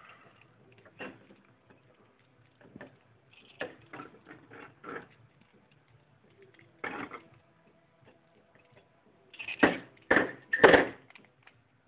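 Scattered clicks and metallic clinks of hand tools, a tap wrench and tap, being handled and set down on a workbench, with three louder knocks close together near the end.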